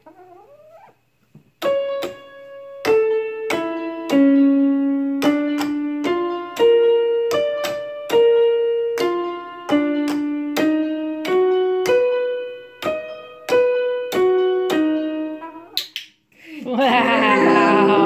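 Electronic keyboard in a piano voice, its keys pecked one at a time by a hen: about two dozen single notes, each struck and left to fade, stepping up and down in a major arpeggio pattern. Near the end, many notes sound together in a denser, louder passage.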